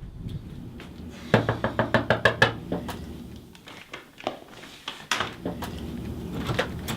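Rapid knocking on a door, about eight quick knocks in a row about a second in, followed by a few single thuds.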